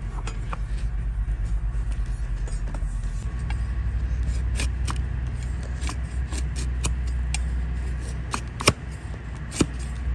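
Irregular sharp clicks and snaps from hoof-trimming tools cutting a donkey's hoof, with the two loudest near the end, over a steady low rumble.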